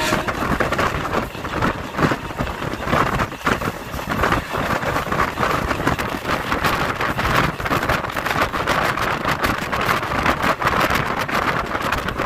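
MEMU (mainline electric multiple unit) train running at speed, heard from its open doorway: wind rushing over the microphone with the rumble and irregular clatter of the wheels on the track.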